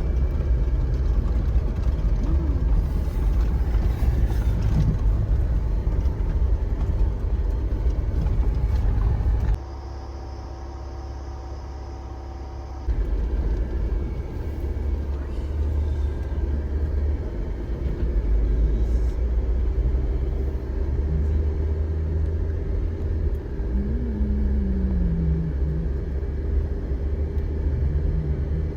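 Car on the move: a steady low rumble of engine and tyre noise. About ten seconds in it breaks off abruptly for about three seconds of quieter sound, then resumes.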